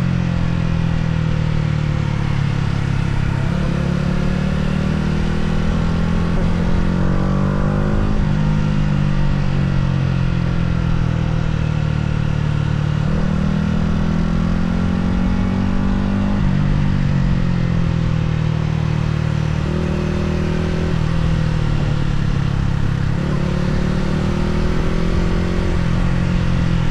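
Yamaha R125's single-cylinder four-stroke engine under way. Its pitch climbs and falls with the throttle, and drops suddenly several times at gear changes.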